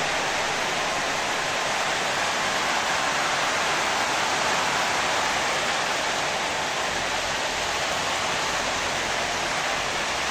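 Heavy rain pouring down, a steady, even hiss.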